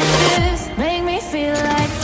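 Background electronic pop music: a gliding synth or vocal melody over a deep drum hit.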